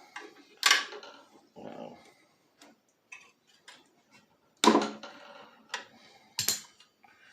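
Scattered clicks and knocks of hands and tools on a small-engine carburetor as its float bowl is unscrewed, with three louder sharp knocks among the light ticking.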